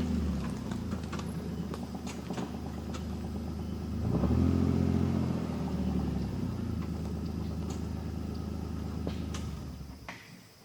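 Kawasaki Mule utility vehicle's engine running, revving up about four seconds in, then settling back and fading out near the end.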